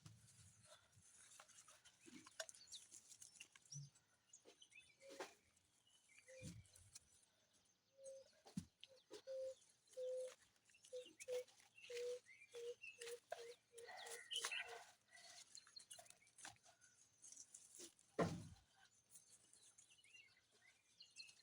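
Faint outdoor sounds: a bird gives a run of short low hooting notes that quicken over several seconds midway, with a few scattered knocks.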